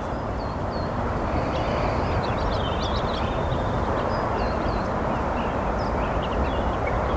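Birds chirping repeatedly over a steady rushing background noise.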